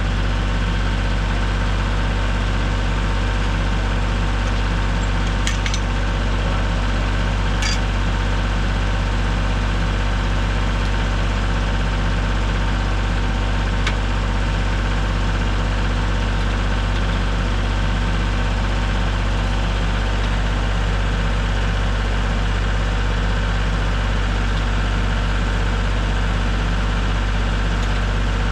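An engine running steadily at idle, with a few brief clicks or ticks in the first half.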